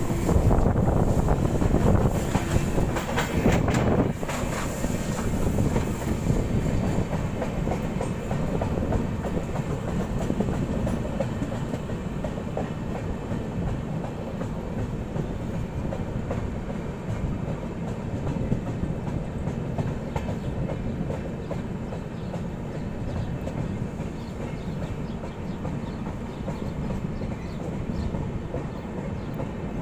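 Passenger express train's coach wheels running on the track, heard from the coach doorway: a steady rumble with clickety-clack over the rail joints. It is louder and hissier for the first few seconds, then settles.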